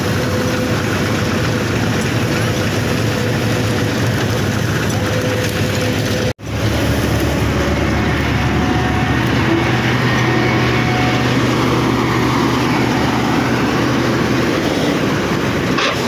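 Steady diesel engine noise of a farm tractor, heard from its seat, mixed with a New Holland combine harvester running close by. The sound cuts out for an instant about six seconds in.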